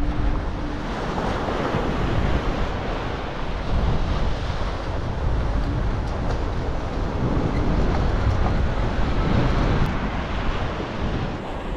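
Strong wind buffeting the microphone in a steady low rumble, over the wash of breaking surf.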